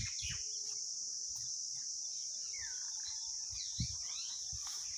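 A steady, high insect drone with birds chirping over it at intervals, and one soft knock about four seconds in.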